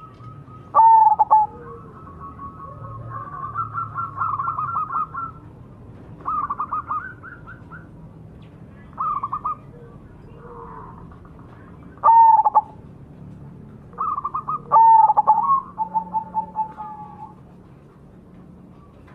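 Zebra dove (perkutut) singing: short phrases of quick, rippling coos, several seconds apart. The loudest phrases come about a second in, about twelve seconds in and about fifteen seconds in.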